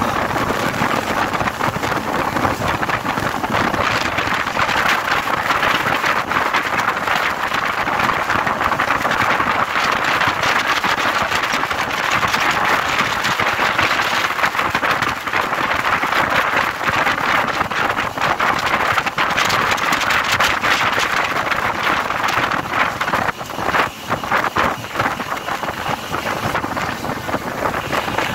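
Wind buffeting the microphone on a motorboat under way, a loud steady rush with the boat's noise underneath. A little after three-quarters of the way through the noise dips and a few knocks come through.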